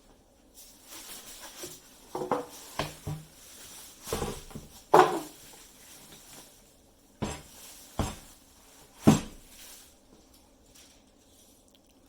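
Irregular knocks and clatter of lathe parts and packaging being handled and set down, with a sharp clunk about five seconds in and the loudest one about nine seconds in.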